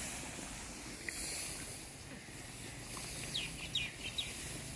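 Outdoor background with a steady hiss, and a short run of quick, high bird chirps about three and a half seconds in.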